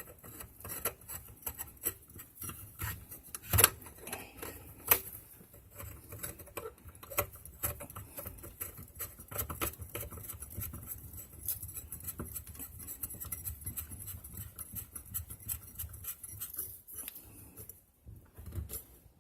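Irregular small clicks, taps and rubbing from hands fitting a threaded pipe and fittings under a bathroom sink, with two sharper knocks about three and a half and five seconds in.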